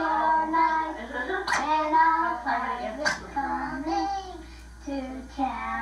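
A young child singing, holding and sliding between sung notes, with two sharp clicks about a second and a half and three seconds in.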